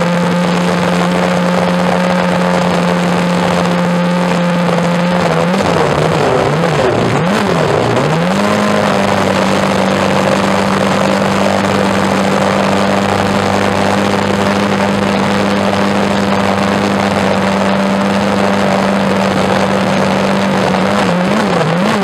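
Benetton B193 Formula One car's Ford HB V8 held at steady revs, with a couple of quick blips of the throttle about six to eight seconds in, then held steady again at slightly higher revs with a few more blips near the end. This is a long steady hold that leaves the exhaust manifolds glowing red.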